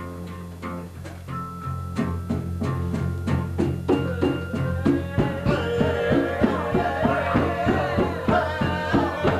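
Live band playing: a drum kit keeping a steady beat under bass and electric guitar, with saxophones among the instruments. The melodic parts grow fuller and louder about halfway through.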